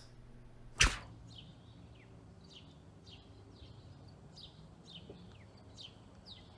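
A single sharp knock a little under a second in, then a small bird chirping over and over outdoors: short, high, downward-sliding chirps, about two a second.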